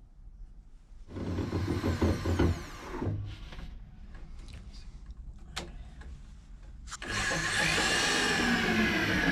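Electric drill driving a long pilot bit into the wooden apron of a boat's stem, run in two spells: a short one about a second in and a longer one from about seven seconds on, its motor pitch shifting as it works under load.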